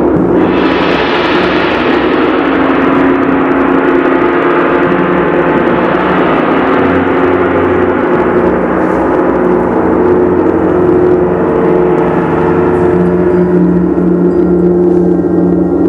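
Several large suspended gongs played together in a loud, continuous rolling wash of sound, swelling brighter about half a second in as a gong is struck. Deep steady hum tones sustain underneath.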